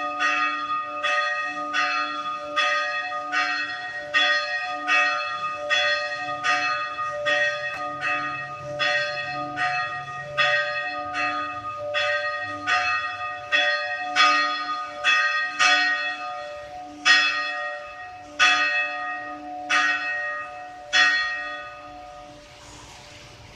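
Church bell ringing in rapid, even strokes, about three every two seconds. Its last few strokes slow down and stop near the end, and the hum then dies away.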